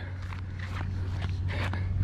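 A few soft footsteps of a person walking, over a steady low hum.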